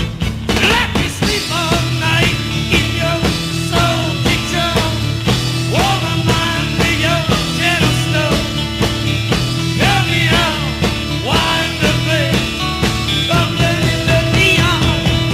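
Rock music with singing and a steady bass line.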